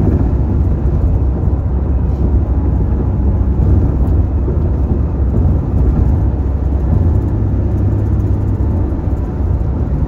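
Steady low rumble of a car travelling on a highway: road, tyre and engine noise.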